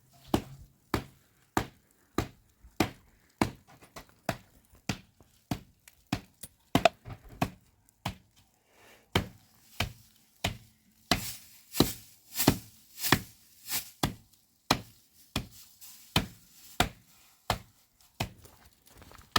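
Repeated sharp chopping knocks, about three every two seconds, louder for a few seconds a little past the middle.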